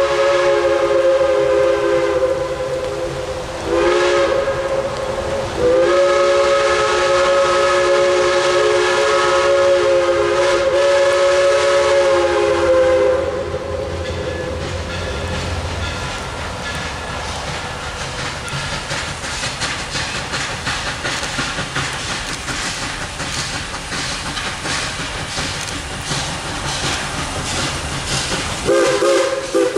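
Multi-note steam whistle of Central Railroad of New Jersey 0-6-0 steam locomotive #113, sounded in turn as the end of a long blast, a short toot, and a long blast of about seven seconds. After that comes a steady hiss with a regular beat of exhaust chuffs that grows stronger as the locomotive approaches, and a short whistle toot near the end.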